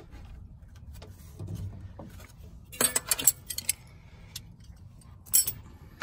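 Light metallic clinks and jingles, a quick cluster of them about three seconds in and one more near the end, over a low steady rumble.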